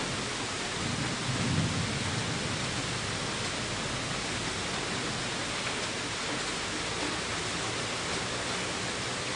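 Heavy rain falling in a steady hiss, with a brief low rumble of distant thunder swelling and fading about a second and a half in.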